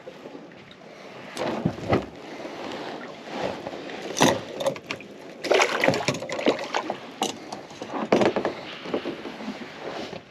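Irregular knocks, clicks and water sloshing from a fish and tackle being handled in a kayak.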